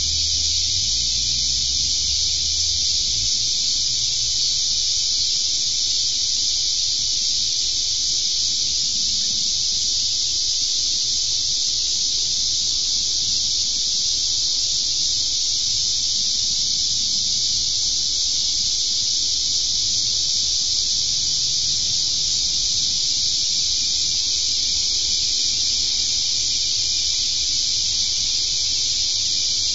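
Steady, dense chorus of insects, a high unbroken hiss that does not change.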